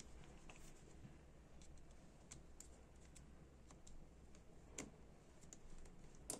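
Faint small metal clicks and scrapes of a fine steel pick working in the top mechanism of a Dupont L1 lighter, over a low steady hum. The clicks are scattered, with a louder one nearly five seconds in and another just before the end.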